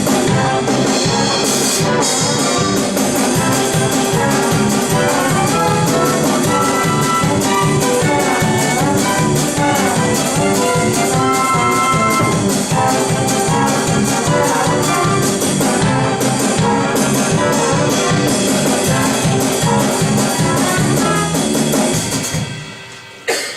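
Brassy orchestral show music with trumpets and trombones over a steady beat: an instrumental number for a stage musical. It winds down near the end with one final accent.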